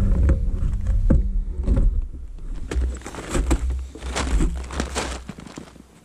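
Handling noise from the action camera being moved and set in place: scraping, rustling and a few knocks over a low rumble. It all dies away just before the end.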